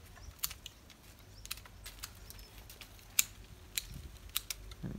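Pruning shears snipping through yellow apricot (mai vàng) branches: an irregular series of sharp clicks, a dozen or more, the strongest a little past three seconds in.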